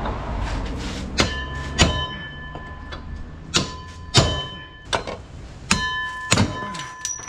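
Metal hand tools clinking and knocking against the upper mount of a Land Cruiser Prado 120's rear shock absorber, about seven sharp knocks, each leaving a brief metallic ring.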